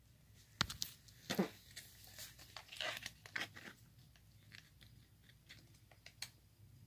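Handling noises as a small battery charger is hooked up to a battery: a few sharp clicks and short rustles in the first half, then faint scattered ticks.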